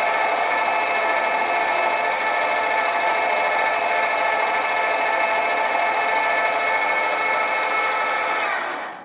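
Sieg SC4 mini lathe running at steady speed with its motor whine while a 2.8 mm drill bit in the tailstock is fed into a brass blank held in a four-jaw chuck. Near the end the lathe is switched off and the whine falls away quickly as the spindle spins down.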